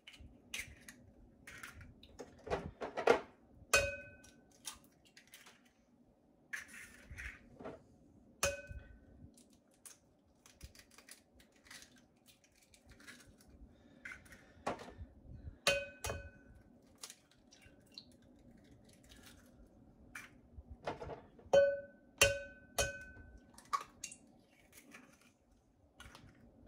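Eggs being cracked one after another on the rim of a mixing bowl: a series of sharp taps and shell clicks, about half a dozen of the knocks followed by a short ringing tone from the bowl.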